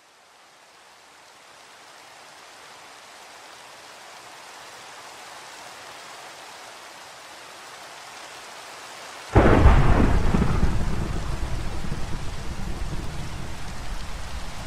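Rain fading in to a steady hiss. About nine seconds in, a sudden loud thunderclap breaks and rolls on as a wavering rumble that slowly dies away.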